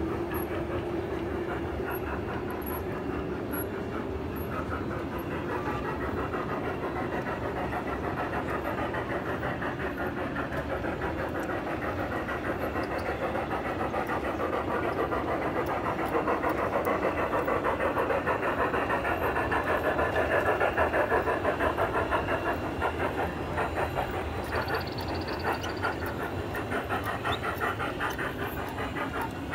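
Large-scale 1:20.3 model steam train running on the track with a fast, steady rhythm, growing louder for several seconds past the middle, then easing off a little.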